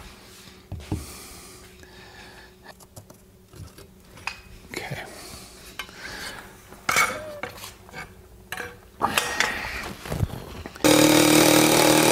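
Scattered light clicks and knocks of hardware being handled, then near the end a cordless power driver runs steadily, driving a screw through a speaker wall bracket; it is the loudest sound.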